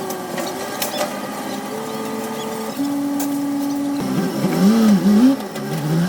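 Caterpillar 320C excavator's diesel engine and hydraulics working, the engine note shifting in pitch and then rising and falling under changing load, loudest about five seconds in.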